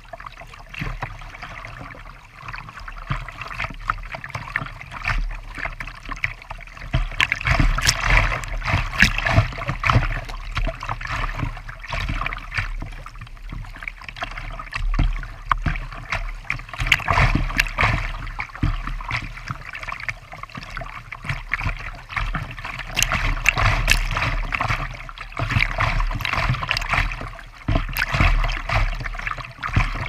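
Creek water rushing and splashing against a kayak's bow close to the microphone as it runs through choppy riffles, swelling into louder bouts of splashing several times.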